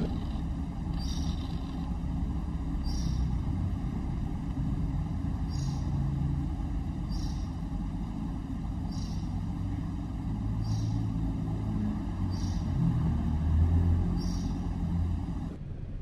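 A fledgling oriental magpie-robin gives a short high chirp about every second and a half, eight times, over a steady low rumble of vehicle engines.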